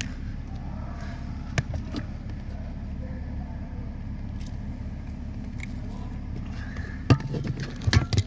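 BMW E60/E61 with its engine idling steadily, and several sharp clunks from the steering, the loudest cluster near the end.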